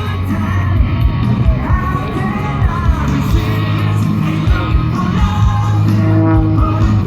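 Rock music with a singing voice over a steady bass and drum beat.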